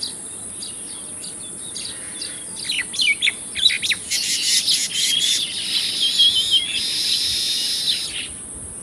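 Baya weavers chirping, the scattered calls building about four seconds in to a dense, louder chattering that stops sharply near the end. A steady high hiss runs underneath.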